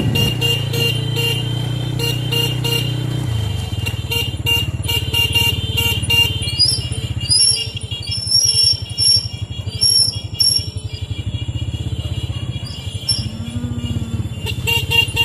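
Background music with a steady beat and deep, sustained bass.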